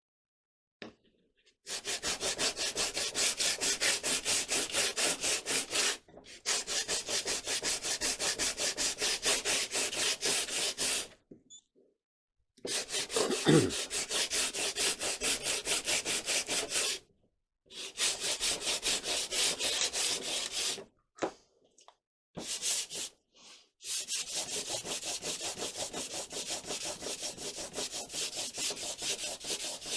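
Hand sanding on wood: quick, even back-and-forth strokes, several a second, in runs of a few seconds with short pauses between. A brief squeak about halfway through.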